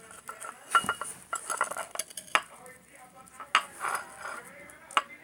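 A stirrer clinking and scraping against a bowl while mixing slime made from glue and liquid soap, with several sharp clinks about a second apart.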